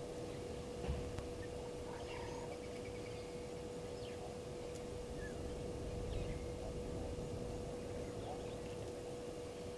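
Faint, scattered bird calls, short chirps and brief glides, over a steady hum and a low rumble of background noise.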